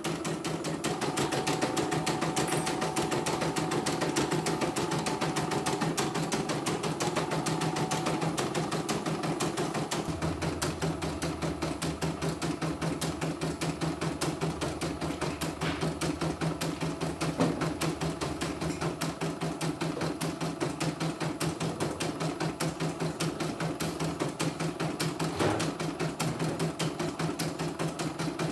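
CNY computerised household embroidery machine stitching out a design at speed, its needle going in a fast, even, unbroken rhythm of clicks. It is the test run after the repair for messy, tangled stitching.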